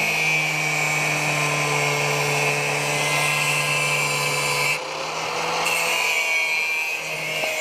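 High-speed power tool running steadily with a high whine, its note changing briefly about five seconds in, typical of a tool working on metal.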